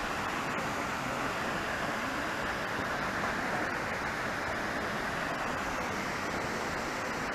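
Waterfall rushing steadily, a constant even roar of falling water fed by tropical-storm rain.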